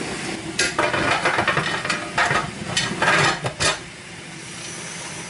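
Aluminium pressure canner lid set on the pot and twisted shut, metal scraping and grinding against the rim in several bursts over the hiss of the water heating inside. Near the end a faint, high, steady whistle begins as steam starts to vent.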